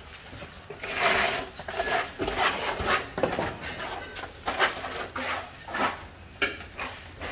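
Steel plastering trowel scooping cement mortar off a board and slapping and scraping it onto a brick wall, in a run of irregular scrapes and sharp knocks.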